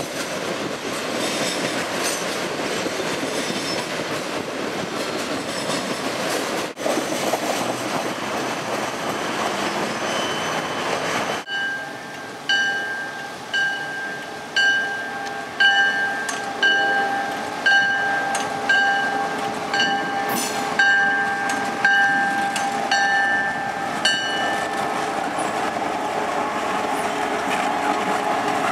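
Triple Crown RoadRailer trailers of an intermodal freight train rolling past with a steady rumble and wheel clatter. About eleven seconds in, a grade-crossing bell starts ringing in even strokes, about one and a half a second, until near the end, while a Norfolk Southern GP38-2 diesel locomotive approaches and rolls by close.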